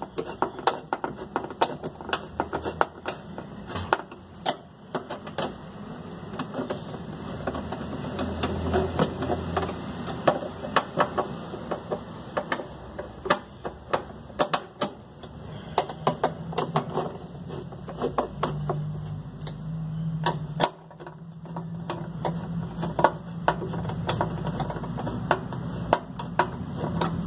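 Ratchet wrench clicking in quick, uneven runs as bolts on a washing machine's steel mechanism mounting plate are turned, with a steady low hum joining about halfway through.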